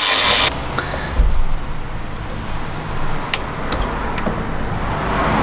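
A short hiss that cuts off suddenly about half a second in, then light clicks and taps of hands working a rubber insulator and metal sleeve into a radiator mount, over a low steady rumble.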